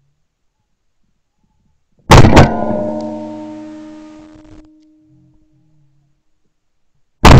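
Two shotgun blasts in quick succession about two seconds in, about a third of a second apart, firing at a flock of incoming ducks, followed by a long ringing tail that fades over a couple of seconds. Another shotgun blast goes off right at the end.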